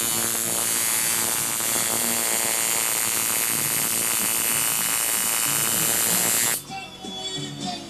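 Coil tattoo machine buzzing steadily as it needles skin, with an even, high, rasping hum. It cuts off suddenly about six and a half seconds in.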